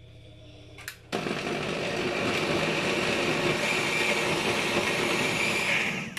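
SilverCrest countertop blender: a click of its speed dial, then the motor starts about a second in and runs steadily, liquidising chunks of aloe vera leaf with honey and whisky, before cutting off near the end.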